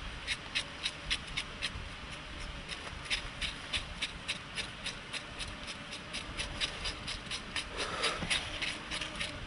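Knife scraping the charred skin of a roasted joint of meat, in quick repeated strokes about three a second.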